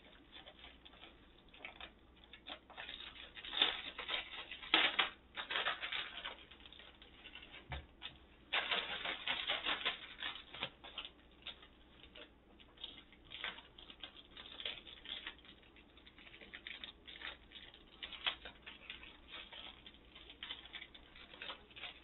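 Plastic packaging of a diamond-painting kit crinkling and rustling as it is handled and the canvas is unrolled, in irregular bursts, with the longest stretch from about eight to eleven seconds in.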